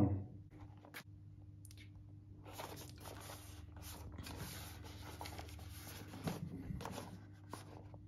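Cardboard product box being picked up and turned over in the hands, rubbing and scraping softly against skin and the table, with a few small knocks.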